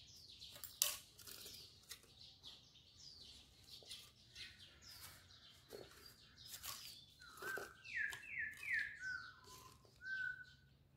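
Small birds chirping, with many quick high chirps, a run of three falling notes and a short clear whistled note near the end. There is one sharp click about a second in.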